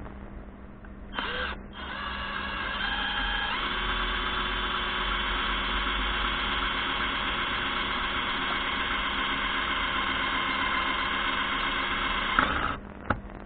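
DEKO DKCD20FU-Li 20 V cordless drill-driver motor spinning up briefly, then running steadily with a whine for about ten seconds. Its pitch steps up a couple of seconds in, and it stops near the end, followed by a single click.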